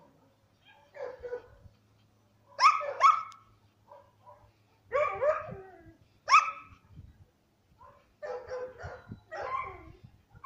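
Dog barking in short, irregular calls, a few seconds apart at first and then in a quicker run near the end, some calls sliding down in pitch like yips.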